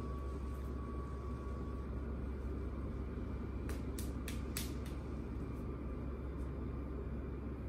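Steady low rumble of room background noise, with a quick cluster of five or so sharp clicks about four seconds in.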